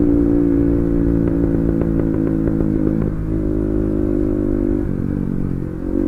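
Bajaj Pulsar NS200's single-cylinder engine running loud at a low, steady road speed through an exhaust with its dB killer removed, a wild loud open note. A few light clicks sound between one and three seconds in, and the engine eases off near the end.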